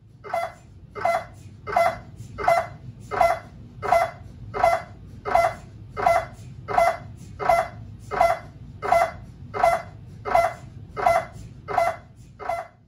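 GE Signa Excite 1.5T MRI scanner's gradient coils running an axial diffusion-weighted echo-planar (DWI EPI) sequence: a loud, even train of short pulses, about three every two seconds, over a low steady hum.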